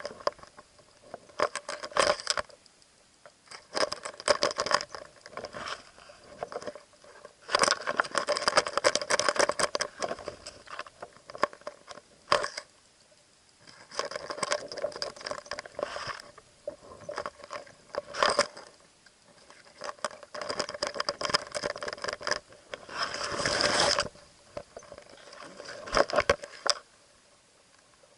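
Irregular bursts of crackling, pattering and scraping heard through an underwater camera as it moves through the water and weeds, with short quiet gaps between bursts.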